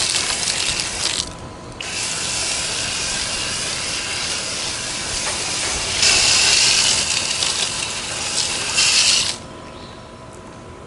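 Garden hose spraying water onto the air conditioner's condenser coil and base pan: a steady hiss of spray that breaks off briefly about a second in, grows louder about six seconds in, and stops about nine seconds in.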